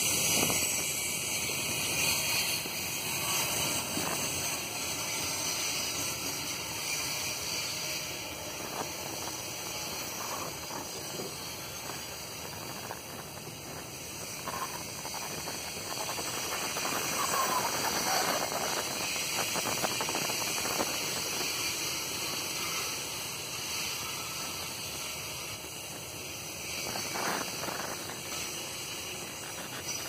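Freight train wagons rolling past on the track: a steady noise of steel wheels on rails, with a few faint, brief squeals.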